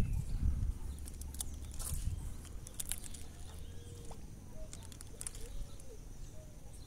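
A low rumble of microphone handling or wind and a few sharp clicks in the first three seconds. Then faint birds call in the background with short, arched notes, several times.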